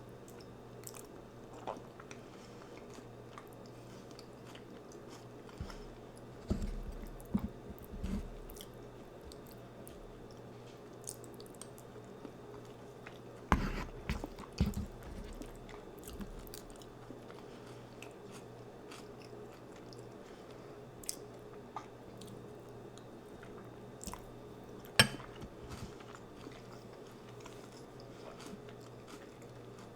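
Close-miked chewing and biting as a person eats a chicken burrito bowl with chips, wet mouth sounds mixed with crunching. Scattered sharp clicks and knocks come in small clusters, the loudest about 25 seconds in, over a low steady hum.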